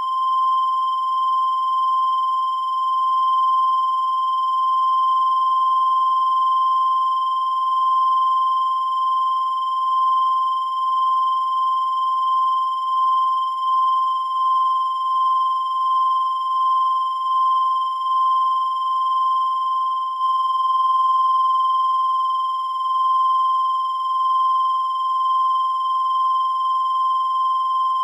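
A steady, high-pitched electronic tone held at one unchanging pitch without a break, its loudness wavering slightly.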